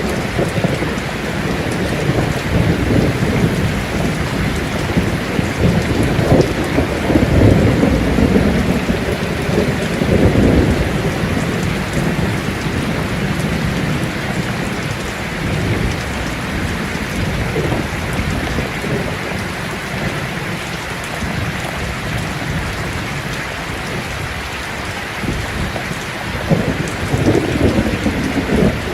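Heavy rain falling steadily, with rolling thunder rumbling low and deep, loudest about six to eleven seconds in and again near the end.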